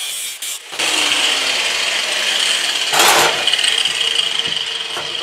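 A power tool running steadily as it cuts a piece out of a 1935 Ford truck's sheet-steel firewall, growing louder about a second in, with one loud clank about three seconds in.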